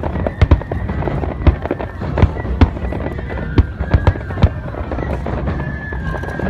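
Fireworks going off in a quick, irregular run of sharp bangs. Under them a festival flute holds a high note, as in Nebuta hayashi music.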